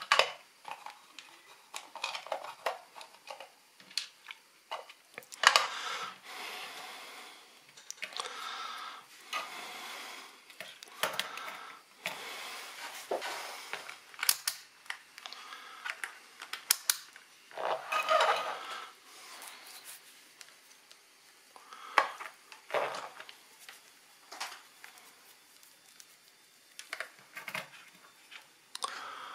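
Irregular clicks, taps and scrapes from a small plastic electronics case being opened, and its lid, screw, circuit board and multimeter probes being handled on a workbench mat.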